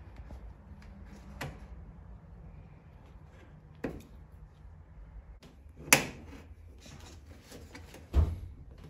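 Plastic drain hose and its fittings being handled on the back of a dryer: four separate clicks and knocks, the loudest about six seconds in and another near the end.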